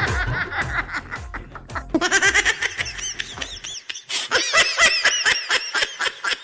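Loud hearty laughter, a fast run of "ha-ha-ha" pulses, over background music that stops about halfway through.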